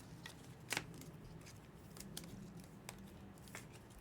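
Faint handling of trading cards: a few soft, sharp clicks and light rustles about a second apart as cards are flipped through, over a low steady hum.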